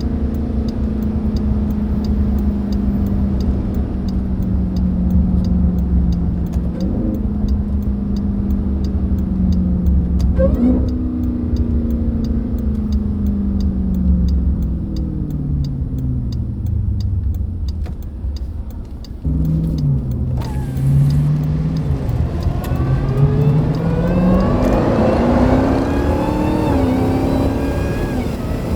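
Jeep Grand Cherokee Trackhawk's supercharged V8 under way: a steady engine note with small jumps in pitch, falling as the car slows in the middle, then rising again as it accelerates near the end, with a climbing supercharger whine over the engine.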